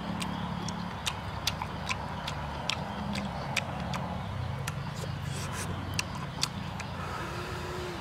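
Close-up chewing and lip-smacking while eating cooked mushrooms: irregular sharp wet clicks, about two a second, over a steady low rumble.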